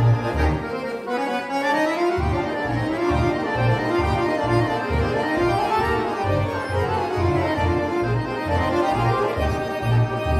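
Accordion quintet playing live: a steady pulsing bass beat under chords and runs that sweep up in pitch over several seconds and then back down.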